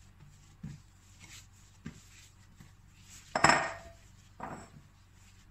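A few soft knocks and thumps as pizza dough is gathered and handled on a floured countertop, with a louder knock about three and a half seconds in.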